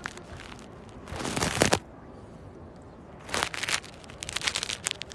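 A cat chewing and tugging at cat grass right at the microphone: two bursts of close rustling and crunching, then a run of crackly snaps near the end.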